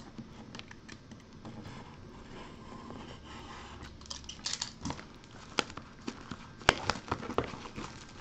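Plastic shrink wrap being slit and peeled off a Bowman Sterling trading card box, faintly crinkling. About halfway through come a few sharp clicks and taps as the cardboard box is opened and handled.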